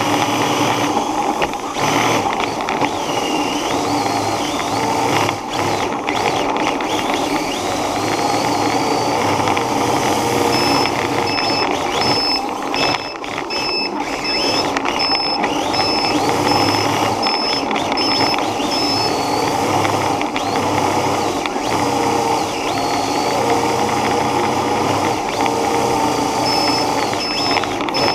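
A small vehicle's motor whining, its pitch rising and falling as it speeds up and slows. A high beep repeats about three times every two seconds for several seconds in the middle, and again near the end.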